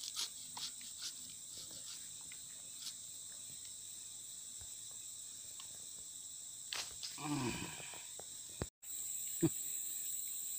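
A steady high-pitched insect drone, with a few soft clicks of a knife cutting through tarap fruit in the first seconds and a brief low sound about seven seconds in.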